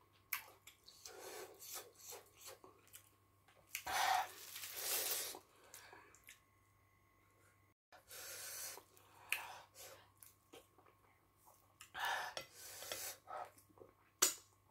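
Close-miked eating sounds of a person eating fufu and pepper soup with the fingers: wet mouth clicks, lip smacks and chewing, with a few louder breaths and a brief drop to silence about eight seconds in.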